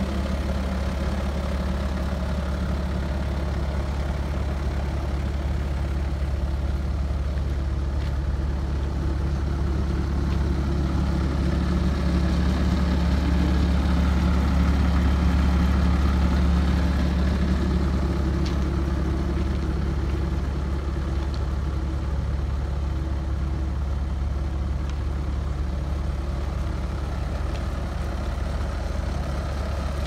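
Bobcat T190's 66 hp Kubota turbo diesel engine idling steadily with a low, even hum, a little louder for a few seconds midway.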